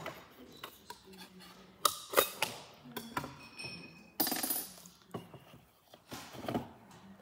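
A few sharp clicks and knocks, with a short scraping rustle about four seconds in, as a picture frame's black backing board is handled and laid into a wooden frame on a tabletop, and small metal framing tools clink against the table.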